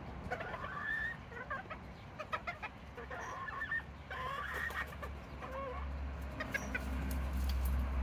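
Serama bantam chickens clucking, with a scatter of short calls throughout. A low rumble grows louder near the end.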